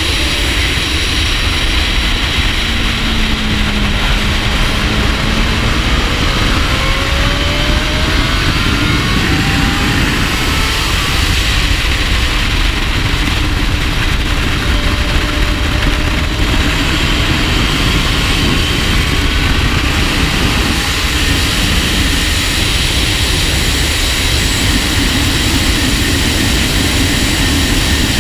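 Wind rushing over a shoulder-mounted action camera on a Honda CBR1000RR Fireblade SP at track speed, with the four-cylinder engine faint beneath it, its pitch rising and falling as the revs change.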